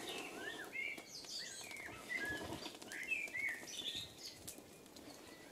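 Small birds chirping in quick, swooping calls, over a soft rushing sound of breath blown into a smoking tinder bundle to bring it to flame.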